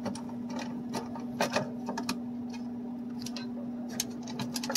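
A screw being unscrewed from a vending machine door panel: scattered, irregular small clicks and metallic taps over a steady low hum.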